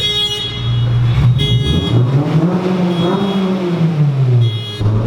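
Honda S2000's exhaust droning with a deep pitch. The engine revs up from about two seconds in and settles back down near the end.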